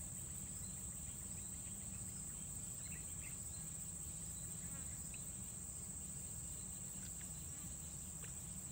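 Insects shrilling in a steady high-pitched drone that holds one pitch throughout, with a low steady rumble underneath.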